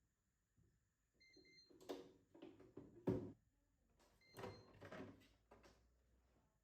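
JURA X10 SA coffee machine beeping: two quick beeps about a second in and one more about four seconds in. Knocks and clunks of parts being handled come between them, the loudest about three seconds in.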